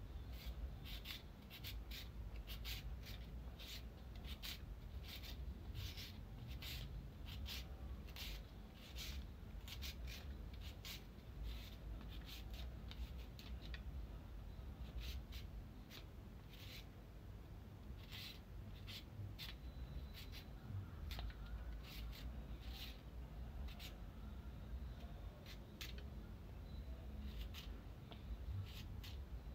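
A carrot being grated on a handheld grater: repeated short rasping strokes, about two a second, pausing briefly a couple of times.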